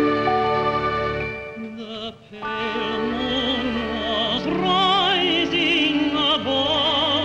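A man singing in a full, operatic style with wide vibrato over instrumental accompaniment. A short held-chord lead-in fades, and the voice comes in about two and a half seconds in.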